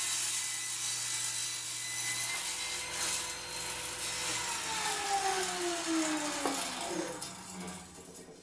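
Table saw running as a block of wood is crosscut on a sliding sled. About halfway through, the motor is switched off and the blade winds down with a falling whine that fades out.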